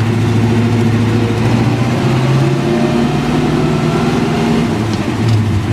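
1963 Chevrolet C30 truck's engine pulling in second gear, heard from inside the cab; the engine note rises a little about two seconds in, holds steady, and dips briefly near the end.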